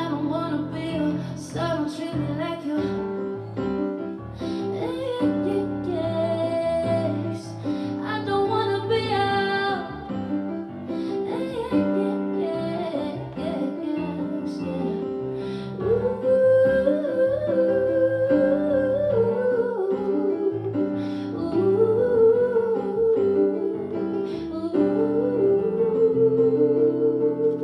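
Live R&B song: a woman sings long held notes and runs over guitar and keyboard accompaniment, with no clear lyrics.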